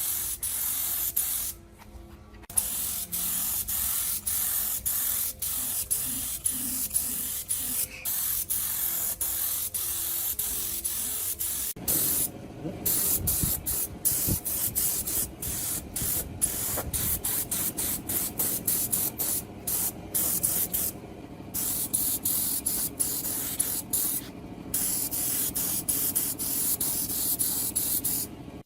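A steady hiss, stopping and restarting many times with brief gaps, and fuller and heavier from about twelve seconds in.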